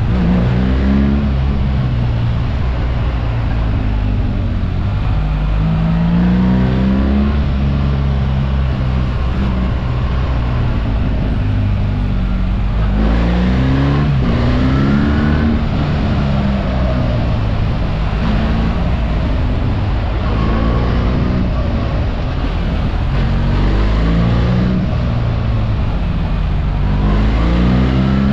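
BMW R 1300 GS boxer-twin engine heard from the rider's seat, repeatedly rising in pitch under acceleration and dropping back as it shifts or eases off, over steady wind and road noise.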